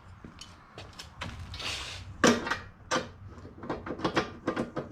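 Irregular clicks, clinks and knocks of metal engine parts and hand tools being handled during a motorcycle top-end teardown, the loudest knock a little past two seconds in.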